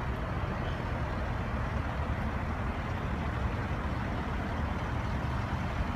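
Medical helicopter running as a steady low rumble.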